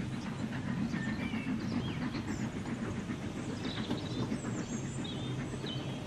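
A train running on track, a steady low rumble, with birds chirping over it several times.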